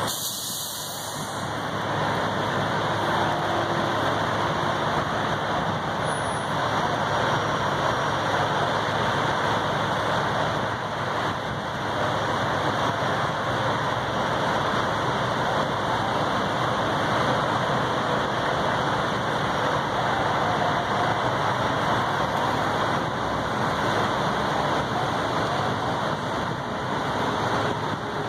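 Steady road traffic noise, with the engines of stopped vehicles running at idle.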